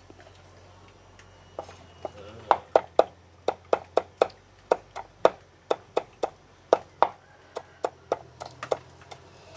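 Knife chopping on a wooden cutting board, a run of sharp strokes at about three a second that starts about a second and a half in.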